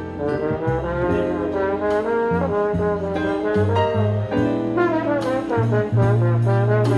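Trombone playing a smooth, phrased jazz melody live, with notes sliding into one another, over a steady bass line.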